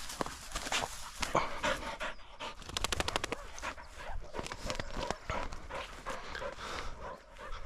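Labrador retriever panting hard while working a scent, with a quicker run of short breaths about three seconds in.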